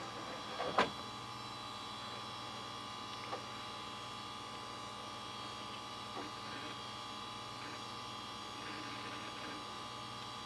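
Dell OptiPlex GX110 desktop computer running steadily through its boot, its fans and hard drive making a constant hum with a steady whine. A sharp click comes about a second in, with a few faint ticks later. The drive sounds fine, with no clicking.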